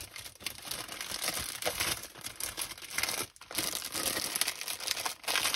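Plastic packaging crinkling and rustling in irregular handling: small packets of diamond-painting drills being put back into a bag.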